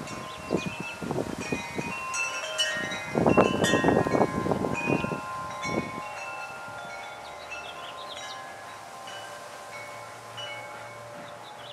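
Wind chimes ringing in a breeze, several overlapping notes struck and left to ring. Gusts of wind buffet the microphone with low rumbling, strongest about three to five seconds in.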